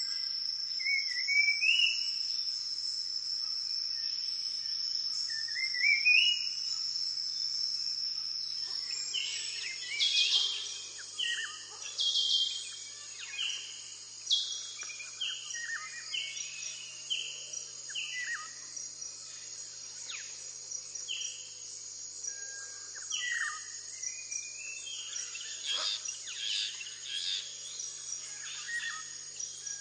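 Ambience of birds and insects: a steady high insect trill throughout, with a few short rising bird chirps at first. About nine seconds in, a busier chorus starts: one bird repeats a falling call over and over among other chirps and calls.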